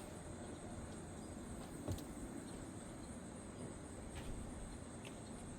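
Quiet outdoor background with a steady high insect-like hum and a few faint knocks, the clearest about two seconds in.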